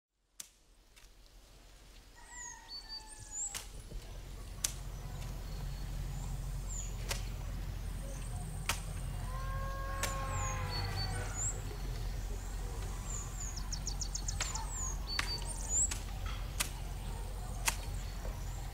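Rural outdoor ambience fading in from silence: birds chirping again and again over a steady low rumble, with scattered sharp clicks. About ten seconds in, a longer animal call rises and falls.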